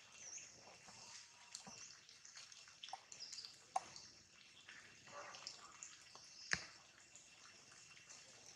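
Rainwater dripping from wet leaves: scattered drops, with two sharper taps about four and six and a half seconds in.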